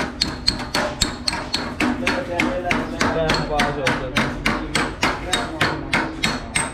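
Hand hammer striking a flat steel bar set against a truck radiator's sheet-metal side frame, bending its edge over. Rapid, even blows, about three to four a second, each with a short metallic ring.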